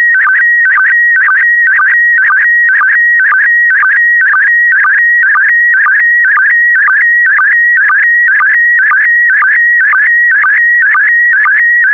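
Slow-scan TV signal in PD120 mode: a loud, steady warbling whistle that shifts in pitch as it carries picture brightness. It is broken about twice a second by a short lower sync blip, one for each pair of image lines sent.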